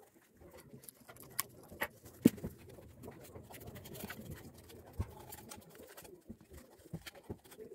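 A rag rubbing over a removed diesel EGR valve's metal body while hands turn and handle it, with scattered clicks and knocks of the metal parts. The loudest knock comes about two seconds in and another near five seconds.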